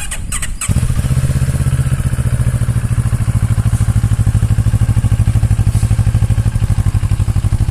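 Cfmoto 700CL-X's 693 cc parallel-twin engine cranking briefly with a few clicks, catching under a second in, then idling steadily with an even pulsing beat.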